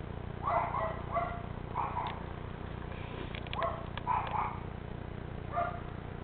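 A dog barking: several short barks at irregular intervals, over a steady low hum.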